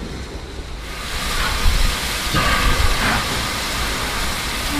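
Victorian Railways R class steam locomotive R761 hissing steam from its cylinder drain cocks, getting louder about a second in, with several short, louder rushes of steam.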